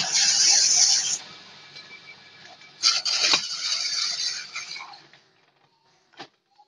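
Coconut trimming machine's spinning conical steel blade shaving the husk off a young coconut: loud cutting noise that ends about a second in, then a second burst of cutting lasting about two seconds. A single short click follows near the end.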